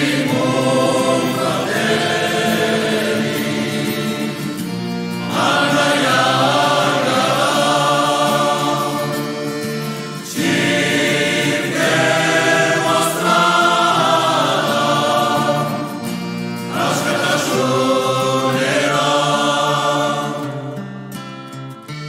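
Music: a choir singing in long phrases over sustained low notes, each phrase starting afresh about every five seconds.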